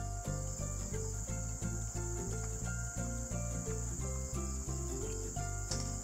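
Background music of short melodic notes over a bass pulsing about three to four times a second, with a steady shrill insect drone high above it.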